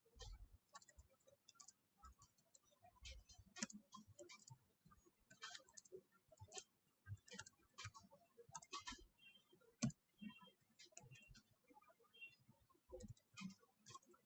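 Faint computer keyboard typing: irregular key clicks, several a second, with one louder stroke about ten seconds in.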